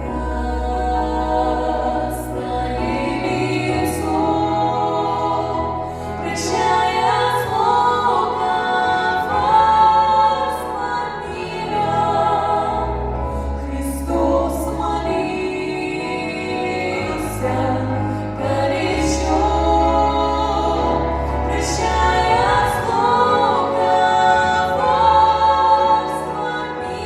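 Music: a choir singing a song over instrumental backing with a bass line and occasional percussive hits.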